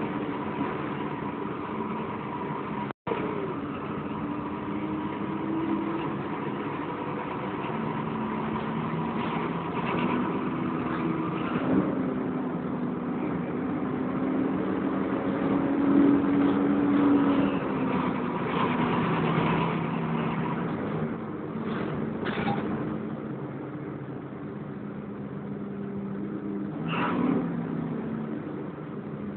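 Volvo B10BLE bus engine running under way, heard on board, its pitch rising and falling with the road speed. A faint steady whine sits above it, and there is a momentary dropout about three seconds in.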